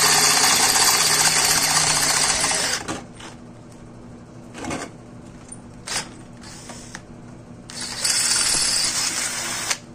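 WAP K21 21V cordless drill/driver running a twist bit into a steel plate held in a vise. It runs loud and steady, drops off about three seconds in with a couple of short knocks, then runs at full speed again near the end before stopping.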